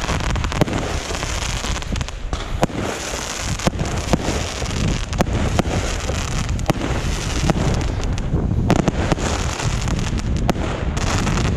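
Aerial fireworks display going off: irregular sharp bangs, roughly one every second or so, over a continuous noisy background.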